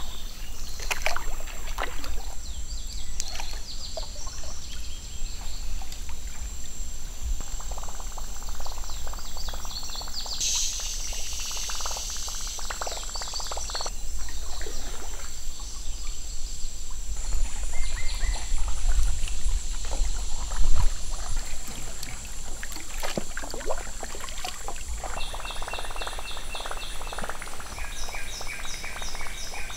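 Kayak paddle strokes splashing and dripping in slow creek water, with birds calling and insects trilling around it and a run of quick repeated chirps near the end. A low steady rumble sits underneath.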